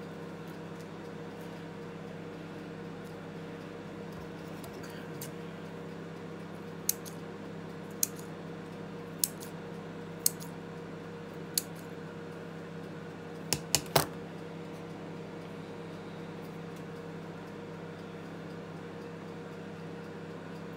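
Kitchen scissors snipping through slices of deli meat: single sharp snips every second or so, then three quick ones close together, the loudest, about halfway through. A steady low hum lies underneath.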